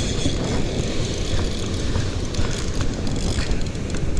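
Wind rumbling on the microphone, with the ratcheting clicks and whir of a spinning reel while a fish is on the line.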